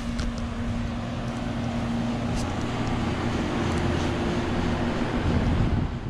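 Outdoor central air-conditioner condensing units running side by side, among them a 1989 Carrier Tech2000 3-ton unit. The compressor and condenser fan give a steady low hum.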